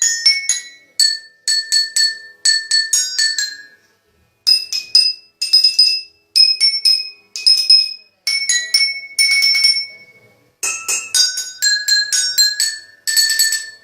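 Bowls struck in quick succession, each strike ringing a clear high note at its own pitch, playing a ringtone melody in short phrases with brief pauses about four seconds in and again about ten and a half seconds in.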